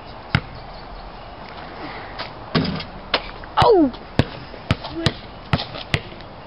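A basketball bouncing on an asphalt driveway: a few single sharp bounces, then, after a shot about three and a half seconds in, a run of five bounces roughly every half second.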